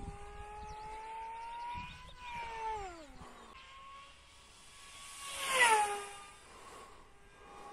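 Electric motor and propeller of a small 4S-powered Depron RC speed plane whining in flight. The pitch falls around three seconds in, and again as it passes loudest, a little before six seconds.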